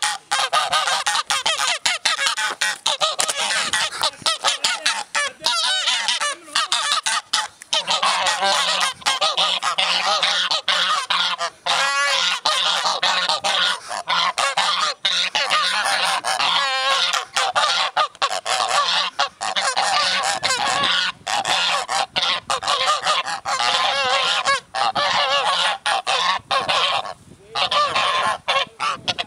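A flock of geese honking, with many loud calls overlapping almost without a break.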